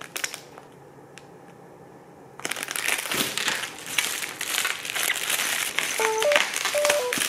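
Crinkly plastic cat toy being crumpled and handled, a loud crackling rustle that starts about two and a half seconds in after a quiet stretch. A few short stepped tones sound near the end.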